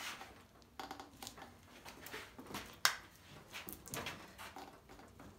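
Manual tire-changer bar prying a small tire's rubber bead over its steel rim: a run of irregular short scrapes and knocks, the sharpest about three seconds in.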